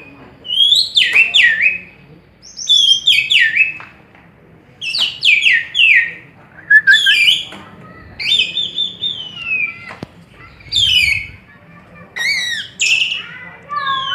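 Asian pied starling singing: repeated short phrases of rapid whistled and chattering notes, many sliding down in pitch, about every one to two seconds.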